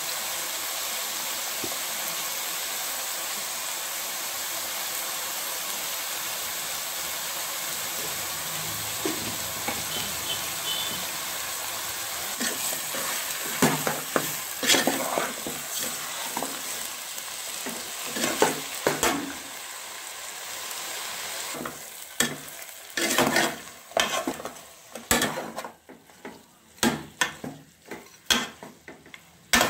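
Mutton sizzling in oil in an aluminium pot, a steady hiss, with a steel spoon stirring and scraping against the pot in repeated strokes from a little under halfway. The sizzle fades about two-thirds through, leaving the separate scrapes and knocks of the spoon.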